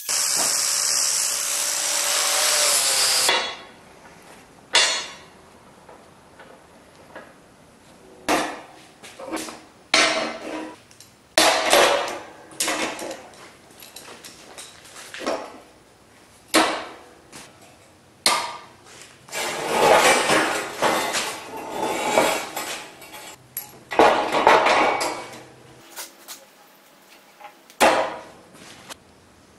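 Angle grinder on a steel bar, stopping about three seconds in, then scattered clanks and knocks of heavy steel bars and clamps being set down, slid and fitted on a steel sheet metal brake, with a few longer scraping stretches.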